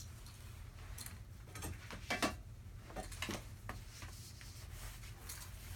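A scatter of light taps and clicks as a flat framed board is laid on the carpet and a small dog steps onto it, the loudest cluster about two seconds in.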